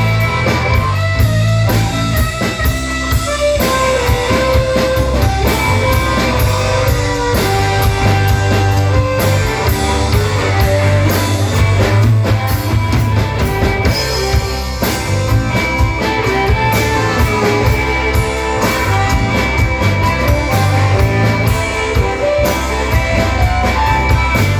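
Instrumental passage of a rock song: drum kit and bass keep a steady beat under a guitar playing a melodic line.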